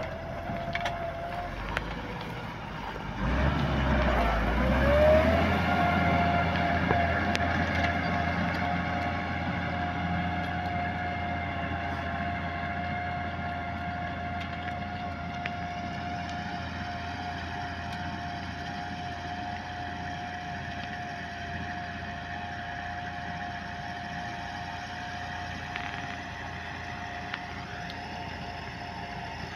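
Landini tractor running under load while pulling a plough, with a steady engine whine over a low hum. The whine rises in pitch about five seconds in, as the load comes on, and then holds level.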